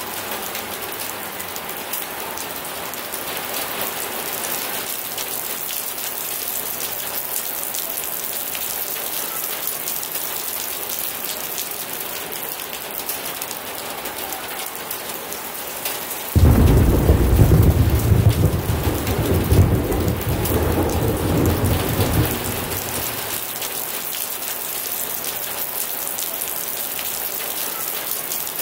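Steady heavy rain falling in a thunderstorm. About halfway through a loud thunderclap breaks suddenly and rumbles on for about six seconds before the rain is left alone again.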